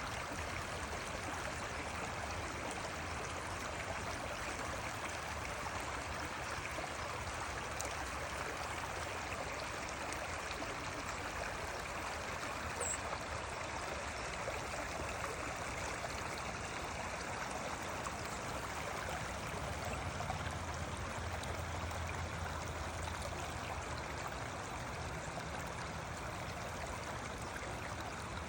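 Creek water running steadily, an even, continuous rush.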